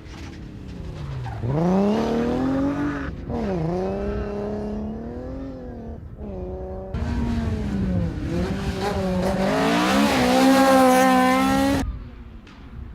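Rally car engine revving hard, its pitch dropping and climbing again as the driver lifts off and changes gear. It is held high before cutting off suddenly near the end.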